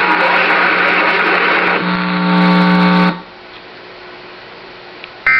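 Loud, garbled Emergency Alert System test broadcast audio: a harsh noise with a steady hum, turning into a loud buzzing tone about two seconds in that cuts off suddenly about a second later and leaves a faint hum. Right at the end a short, high electronic tone burst begins.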